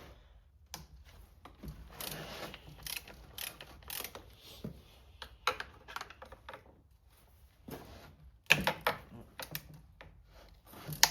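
Socket ratchet clicking in short bursts as bolts are cracked loose, with a few sharper knocks of metal parts and tools among them.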